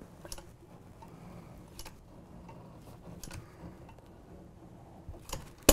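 Manual caulking gun clicking as its trigger is squeezed to push sealant into a seam: a few sharp ticks spaced a second or more apart, the loudest near the end.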